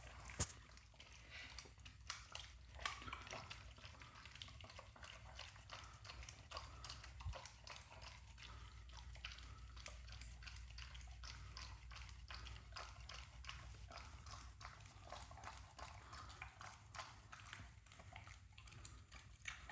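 Dog eating soft food from its bowl: a steady run of faint, quick chewing and smacking clicks.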